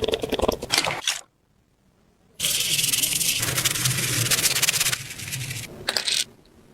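Abrasive scraping and rubbing on a rusty car part, as in sanding or brushing off rust. It comes in two spells of rapid strokes: a short one at the start and a longer, steady one from about two and a half seconds in until near the end.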